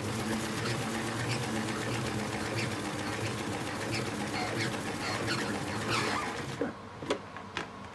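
Plastic salad spinner whirring steadily as it is turned by the knob on its lid, spinning the water off washed greens. The whirring stops about six and a half seconds in, followed by a few light clicks.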